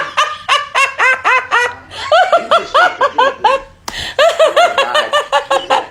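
A person's high-pitched, wheezing laughter: rapid squeaky pulses, about five a second, in three runs with short breaks for breath.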